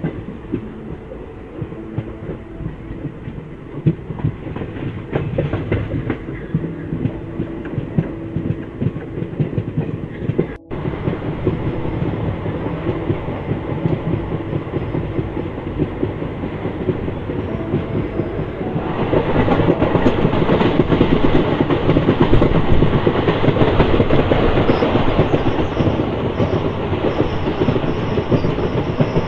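Passenger train running on broad-gauge track, heard from aboard: a steady rumble with the clatter of wheels over the rails. It cuts out for an instant about ten seconds in, and from about two-thirds of the way through it gets louder and brighter.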